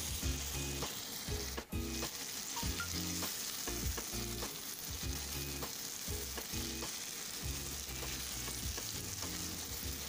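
Shredded vegetables in a little tomato juice sizzling in a pan while a silicone spatula stirs them, with frequent short scrapes and knocks of the spatula against the pan.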